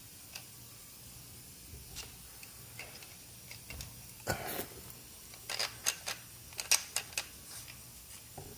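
Hand-turned HeliCoil insertion tool winding an M6 thread insert into a tapped hole, giving small irregular clicks and ticks. The clicks come sparsely at first and grow busier after about four seconds.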